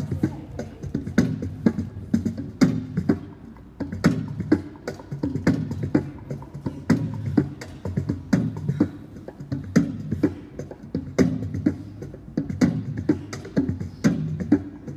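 Rhythmic drum music with sharp strikes repeated one to two times a second over a low, pitched undertone.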